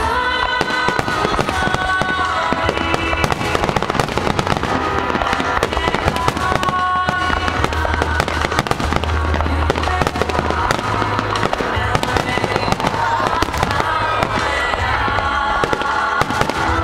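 Fireworks going off in a dense, continuous run of bangs and crackles, with music playing over loudspeakers alongside.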